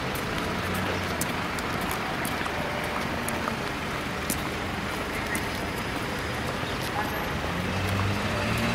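Street traffic: the steady hum and tyre noise of passing cars and buses, with an engine's hum growing louder near the end.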